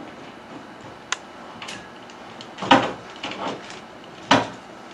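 Hard parts of a motorized curtain track being handled: a sharp click about a second in, then two louder clunks with a few smaller knocks between them.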